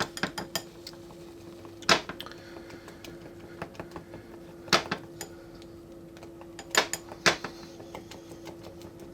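Bowls and a spoon knocking and clinking on a tabletop as a bowl of slime is moved and set down. There are scattered sharp knocks, the loudest about two seconds in, near five seconds and twice near seven, over a steady low hum.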